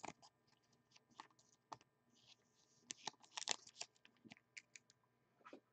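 Faint, scattered small clicks and light plastic rustles of a trading card being handled and fitted into a clear plastic sleeve. The clicks bunch together about three seconds in.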